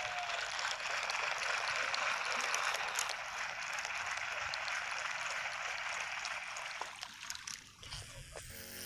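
Steady rush of flowing water that fades away near the end.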